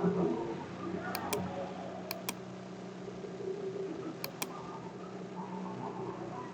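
Steady rushing of a waterfall, with a low steady hum under it and three pairs of short sharp clicks about a second, two seconds and four seconds in.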